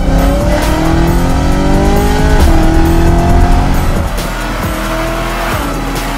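BMW E92 M3's V8 through a VVS aftermarket exhaust under hard acceleration, its pitch rising, dropping sharply at an upshift about two and a half seconds in, then climbing again before easing off near the end.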